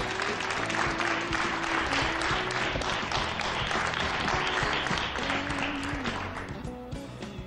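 Studio audience applauding over entrance music; the clapping dies away about six seconds in, leaving the music fading.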